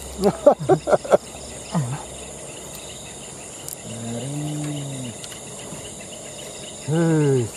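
A chorus of insects keeps up a steady, high, even drone. Short bits of men's voices break in during the first second and again near the end.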